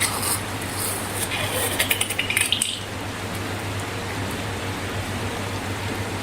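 Slime being squished and handled: a run of short crackling clicks from about one to three seconds in, over a steady hiss and low hum.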